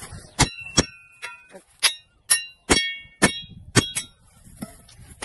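Metal hoe blade clanging: about eight sharp ringing strikes in quick, uneven succession, then a fainter one near the end.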